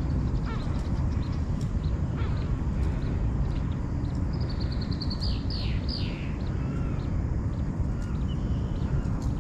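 Birds calling over a steady low rumble: one gives a rapid trill of high notes about four and a half seconds in, then a few quick down-slurred notes, with other short chirps scattered through.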